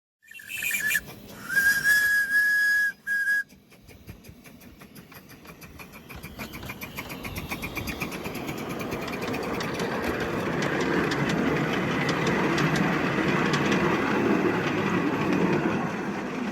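Train whistle blowing twice, a short blast and then a longer one, followed by the train moving off: a rhythmic beat that quickens as a running rumble builds up and holds.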